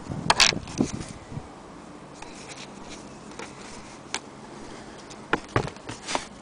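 Handling noise: irregular rustles and light knocks as fabric and leather are moved about by hand, with a louder rustle about half a second in and a few sharper knocks near the end.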